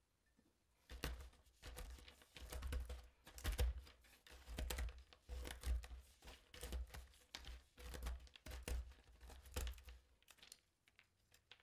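Pecans being chopped on a plastic cutting board with a handheld stainless round-blade chopper: faint, repeated strikes of the blade through the nuts onto the board, about two a second, with the crunch of nut pieces.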